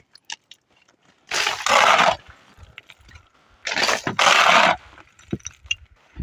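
A shovel scraping and scooping through masonry rubble and wet mud, in two rough strokes, about a second and a half in and again about four seconds in, with small gritty clicks between them.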